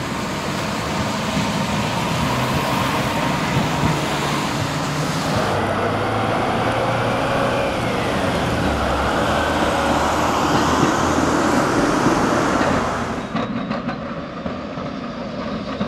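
Electric tram running along street track, its motors and steel wheels on the rails making a steady noise. The sound changes abruptly about five and a half seconds in, and it drops in loudness near thirteen seconds.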